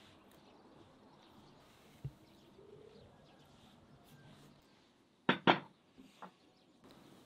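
Two sharp knocks in quick succession about five seconds in, followed by two lighter taps, over faint bird chirps; a smaller single knock comes about two seconds in.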